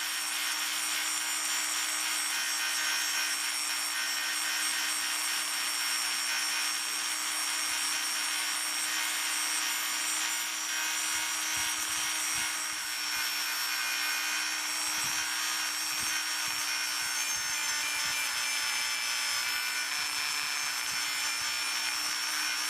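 Dremel rotary tool with a sanding drum grinding the steel handle of a ratchet: a steady motor whine over a continuous rasping sanding hiss.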